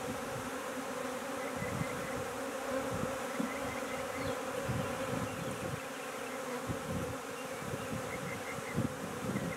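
Steady buzzing hum of a swarm of honey bees around an open nuc box and frame as they are worked into it.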